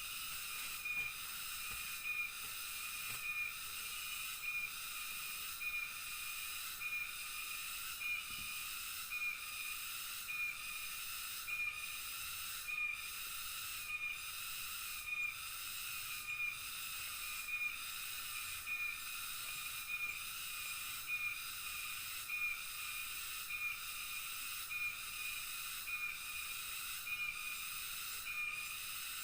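Rainforest night chorus of insects: a steady shrill hiss, with a short call repeating evenly about once a second.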